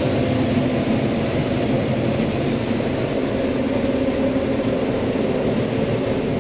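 John Deere 9500 combine running steadily while harvesting corn: a constant drone of engine and threshing machinery with a low, even hum.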